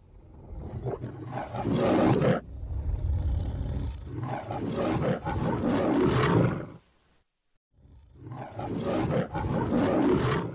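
The MGM logo's lion roaring: a series of loud, growling roars, broken by a brief silence about seven seconds in before the roar starts again.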